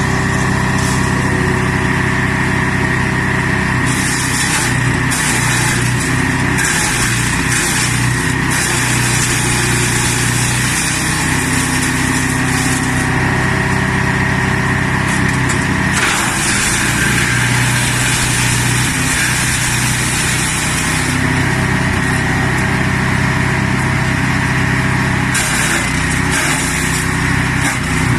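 Engine-driven garden branch shredder-chipper running steadily, with several spells of harsher high-pitched noise lasting one to five seconds each as branches go through the cutters.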